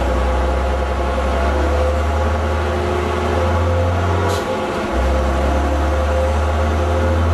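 Leyland Olympian double-decker bus engine droning under way. About four and a half seconds in there is a single short hiss of air as the air-operated gearbox changes gear (the 'sneeze'), while the engine note drops out for about half a second before carrying on.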